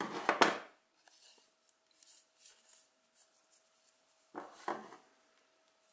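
Metal scissors being picked up and handled on a tabletop, with yarn rustling between the fingers: a short rustle and clatter at the start, faint scrapes and taps, then another brief clatter about four and a half seconds in.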